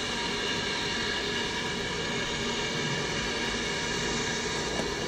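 BR Standard Class 4MT steam locomotive standing or just easing forward, giving off a steady hiss of steam.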